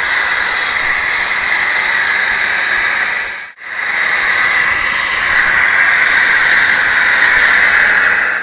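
Compressed air hissing hard from an Indian Railways passenger coach's emergency alarm-chain (chain-pulling) valve, venting brake air after the chain was pulled. It drops out for an instant about three and a half seconds in, then cuts off suddenly near the end as the valve is reset.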